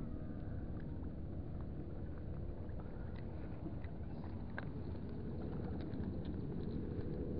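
Steady low rumble of harbour background, typical of boat engines running in the distance, with a few faint small clicks.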